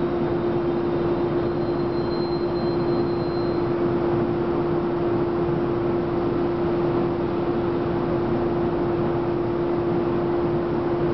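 Electric train standing at a station platform: a steady hum with one constant mid-pitched tone over an even rumble, unchanging throughout.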